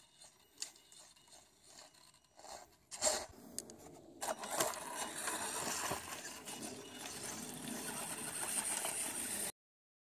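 Radio-controlled Axial Yeti truck's electric motor and drivetrain whirring as it crawls over wooden boardwalk planks, growing louder as it nears, after a few light clicks and knocks; the sound cuts off abruptly near the end.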